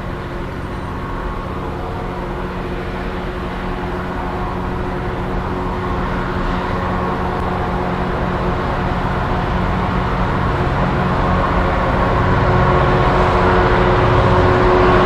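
Class 66 diesel-electric locomotive's EMD two-stroke V12 engine running with a steady drone, growing steadily louder as it approaches at the head of a loaded stone train.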